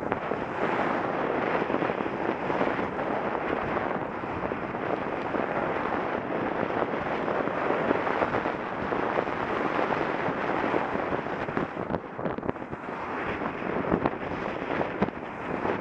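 Wind buffeting the microphone of a bicycle-mounted camera while riding: a loud, steady rush broken by many short crackles.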